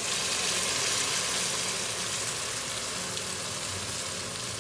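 Vegetables sizzling in a hot pot as tamarind water is poured in: a steady hiss, loudest over the first second or two.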